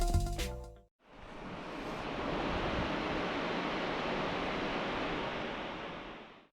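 The tail of intro music ends about a second in. Then a steady rushing air noise, the fans of a running GPU mining rig, fades in, holds and fades out.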